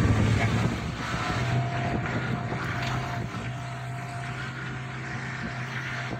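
Car engine running and tyre and road noise heard from inside the cabin while driving, a steady low hum over a rushing haze. It cuts in abruptly and is loudest in the first second.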